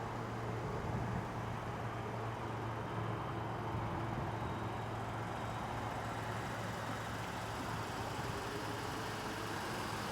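Ford Police Interceptor Utility idling with a steady low hum.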